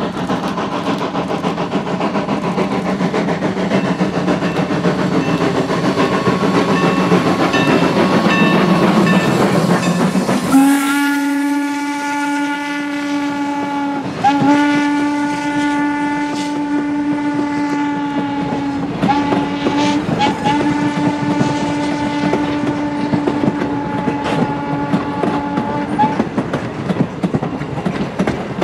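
A steam locomotive running by, its noise building, then Norfolk & Western No. 475's 12-inch hooter steam whistle sounds the grade-crossing signal about ten seconds in: long, long, short, long. Wheel clatter continues under the whistle.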